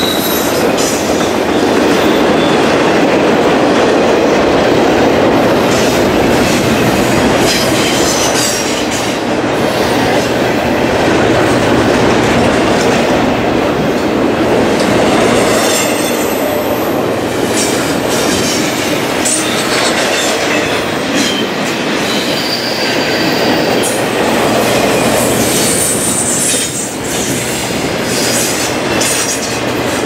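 Double-stack intermodal container train rolling past: a steady rumble of steel wheels on the rails with scattered clicks over the rail joints, and a few brief high wheel squeals.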